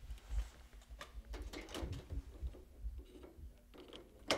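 Handling knocks and light scraping as an LED tube is fitted into the lampholders of an overhead light fixture, with a sharp click near the end as the tube seats.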